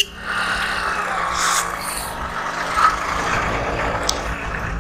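Small motorcycle running on the move, a steady engine and road noise with wind across the microphone; a short sharp tick about four seconds in.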